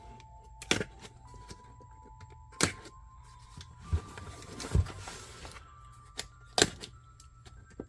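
Sharp clicks and knocks from the wrench set's box being handled, about five in all, with a stretch of rustling near the middle, over quiet background music.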